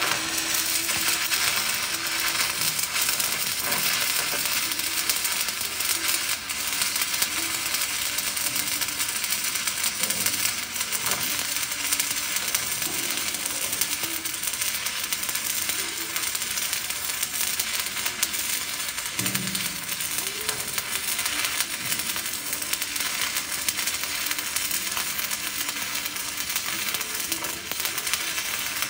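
E6010 stick-welding arc running a vertical-up bead on steel plate: a continuous harsh crackle and sizzle, struck abruptly at the start.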